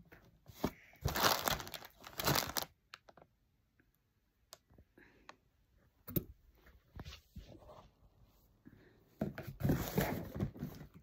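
Cardboard box and packaging being handled, crinkling and rustling in two bursts, about a second in and again near the end, with a few light knocks between.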